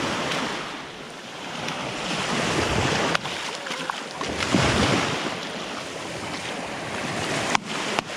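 Small surf waves breaking and washing up the shallows at the water's edge, swelling and ebbing, with wind buffeting the microphone.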